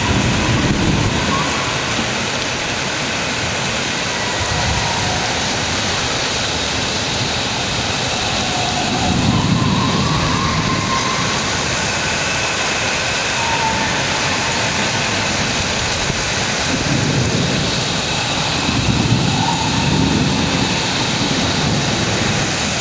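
Thunderstorm: a steady hiss of storm noise with low rolls of thunder that swell up several times, strongest about nine seconds in and again near the end.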